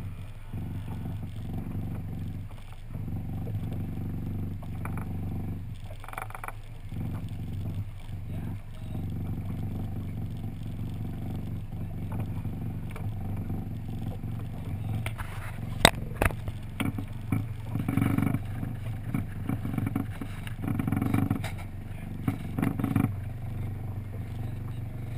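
Outboard motor on a 20-foot skiff running at a steady pitch, with a few sharp knocks a little past the middle.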